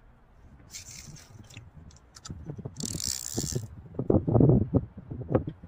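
Fishing rod and reel being handled close to the microphone: two short hissing scrapes, then a run of knocks and rattles that is loudest in the second half.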